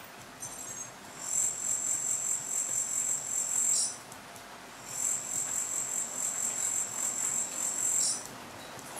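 EMO robot's small built-in speaker playing a high-pitched, evenly pulsing electronic buzz twice, each time for about three seconds: the sound effect of its laser-eyes animation.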